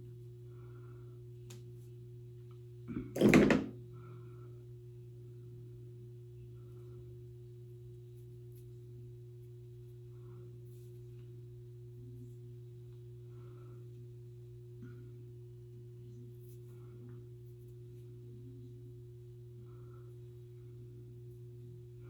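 A steady low electrical hum with faint, scattered soft rustles of hair being handled, and one loud thump about three seconds in.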